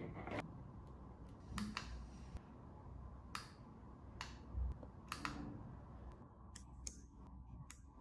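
Faint, scattered clicks and handling noise from small plastic parts: DC barrel plugs and cables being handled, and buttons pressed on a key-fob remote, with a run of quick clicks near the end.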